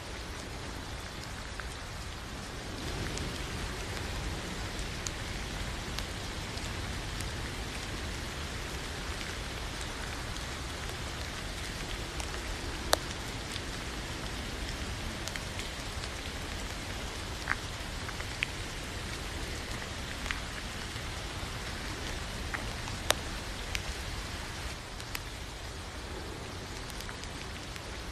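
Steady rainfall, an even hiss with a few sharp ticks of single drops scattered through it, the loudest about halfway through and again near the end.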